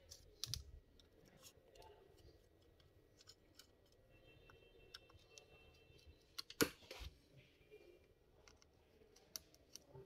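Faint clicks and light scraping from a small screwdriver working the heat sink screws of a laptop, with two sharper clicks about two-thirds of the way through.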